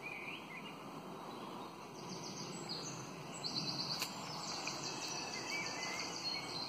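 Small birds chirping and singing in short, high calls over a steady background hiss, with one faint click about four seconds in.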